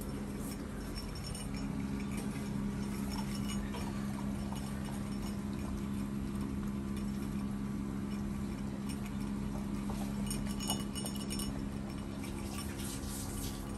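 Labrador puppy eating rice with gravy from a stainless steel bowl: soft chewing and licking with small clicks and light knocks against the bowl, a little busier about ten seconds in and near the end, over a steady low hum.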